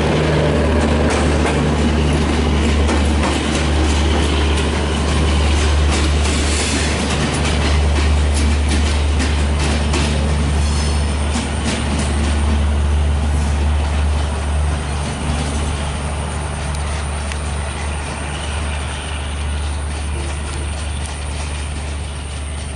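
Diesel-hauled passenger train's coaches passing close by, wheels clicking over the rail joints, over the steady low hum of the rear power car's diesel generator. The sound fades over the last several seconds as the train draws away.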